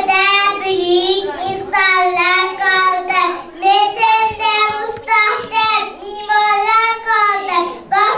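A small girl singing solo into a handheld microphone: a high child's voice in short phrases with long held notes.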